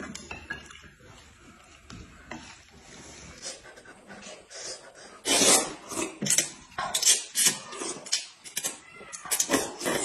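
Noodles being slurped in from chopsticks: a run of loud, short, hissing slurps starting about halfway through, several a second.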